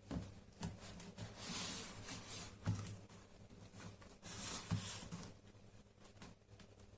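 Handling sounds as an iPad's glued front screen is pried and peeled away from its adhesive: two longer scraping noises with a few sharp clicks and knocks between them.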